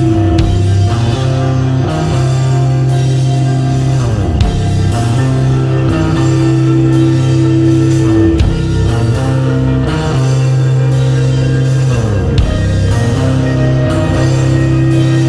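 Rock music with guitar and drums: held bass notes under a steady beat of drum and cymbal hits.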